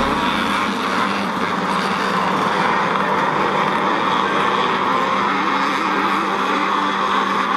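A pack of classic scramble motorcycles racing at a distance, many engines buzzing together and overlapping, their pitches wavering up and down as riders rev and shift.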